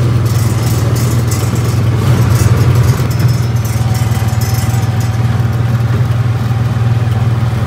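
Engine of a John Deere Gator utility vehicle running steadily as it is driven, a little louder about two to three seconds in. It is a sound the cattle know and follow.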